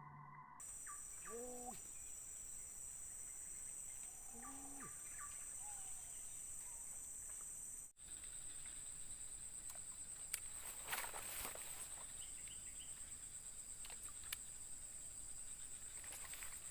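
Steady, high-pitched buzzing of insects in the forest, with a brief dropout about halfway through. Two short, lower calls stand out over it, about one and four seconds in.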